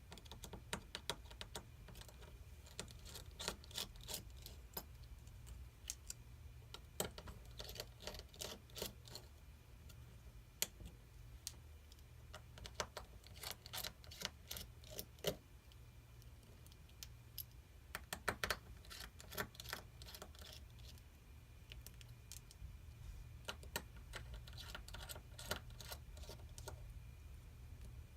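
Faint, irregular clicks and ticks of a small phone-repair screwdriver working out the tiny screws from a Samsung Galaxy S9's inner frame, and of the screws and tools being set down, over a low steady hum.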